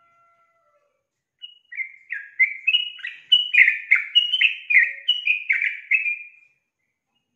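Female yellow-vented bulbul (trucukan) singing a bubbling, chattering phrase of quick notes that step up and down, about three a second. It starts about a second and a half in and lasts about five seconds. This is the lure call used to get male trucukan to sing along.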